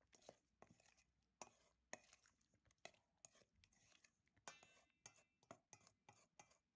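Faint, irregular wet squishes and clicks of a hand mixing chicken wings into a flour-and-egg batter in a stainless steel bowl, a few sharp ticks a second.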